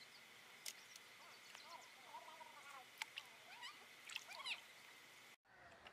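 Faint outdoor ambience of small birds chirping over and over in short, gliding calls, with a steady high hum underneath and a few light clicks. It cuts off suddenly near the end.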